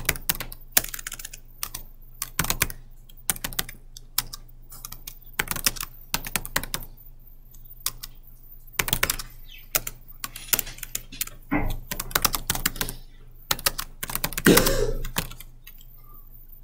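Typing on a computer keyboard: runs of keystrokes with short pauses between words. Near the end there is one louder thump.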